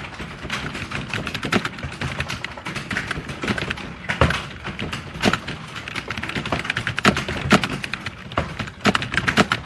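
Fast touch-typing on a computer keyboard: a rapid, irregular stream of key clicks, with some strokes noticeably louder than the rest.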